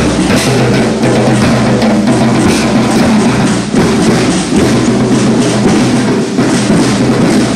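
Marching drums, snare and bass drum, beating a steady march rhythm for a column of marchers.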